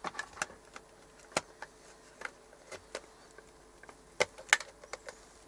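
Scattered small clicks and knocks of a Roberts RFM3 radio's chassis being fitted back into its case, with two sharper knocks a little after four seconds in.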